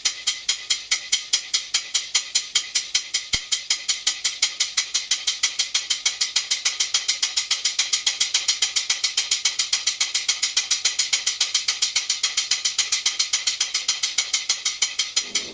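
Large model horizontal steam engine with a single cylinder, running on live steam with its valve timing freshly adjusted. It gives a sharp, even beat that quickens from about four to about six a second.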